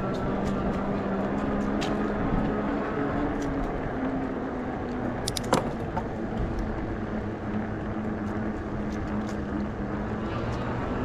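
Nakto F6 electric fat bike's motor whining steadily under load while climbing a hill, over a constant rush of wind and tyre noise. There are scattered light clicks throughout, and a short sharp rattle about halfway through.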